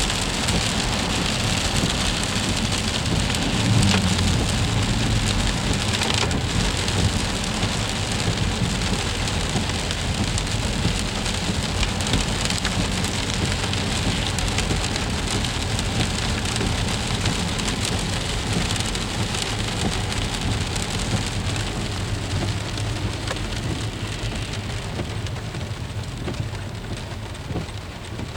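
Freezing rain falling steadily in an ice storm, a dense pattering of small ticks, with a low rumble underneath that swells about four seconds in. It thins slightly near the end.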